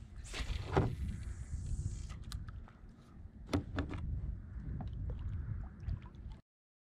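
Water lapping against a plastic kayak hull under a steady low rumble, with a hiss for about two seconds near the start and a few sharp clicks and knocks from a spinning rod and reel being worked. The sound cuts out suddenly near the end.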